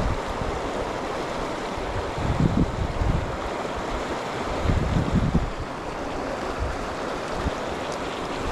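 River water rushing steadily, with a few gusts of wind buffeting the microphone, about two and a half seconds in, around five seconds in and near the end.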